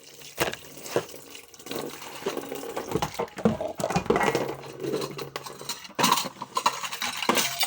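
Tap water running into a sink during hand dish-washing, with irregular knocks and clatters of dishes being handled.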